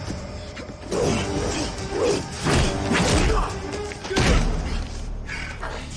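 Fight-scene sound effects: a run of hits and thuds, loudest from about one to four and a half seconds in, over dramatic background music.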